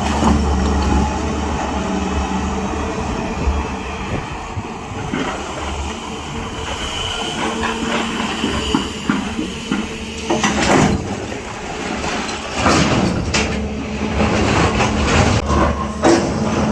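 Large diesel excavator engine running steadily, with metallic clanks and knocks from about ten seconds in.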